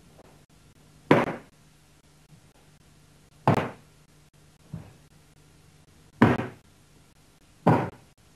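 Bare feet striking a wooden floor in sharp knocks as a karateka steps and stamps into stances during a kata: four loud ones a couple of seconds apart, with a fainter one between the second and third.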